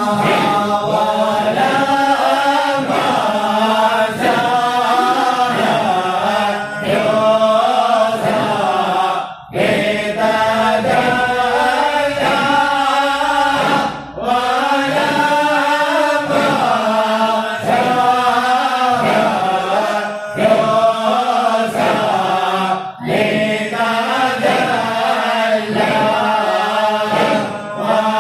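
A Shadhili Sufi nasheed chanted in Arabic, a melodic vocal chant with short pauses between lines about 9, 14 and 23 seconds in.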